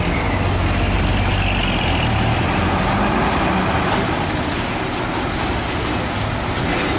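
Diesel engine of a Mitsubishi Fuso Fighter truck running as the truck pulls slowly away, over steady road traffic noise. The low engine hum is strongest in the first couple of seconds.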